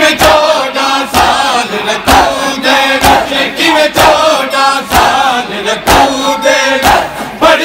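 A crowd of men chanting a noha refrain together during matam, with unison chest-beating slaps landing about once a second.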